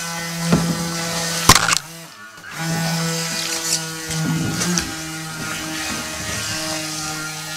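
Small electric motor of a 3D-printed RC water jet boat running with a steady whine. It cuts out briefly about two seconds in, then picks up again, with a few sharp knocks.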